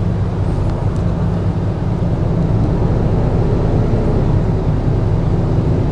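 Wind buffeting the microphone on an open flybridge, a steady gusty rumble, over the low, even running of the Sunseeker 76 motor yacht's engines at slow manoeuvring speed.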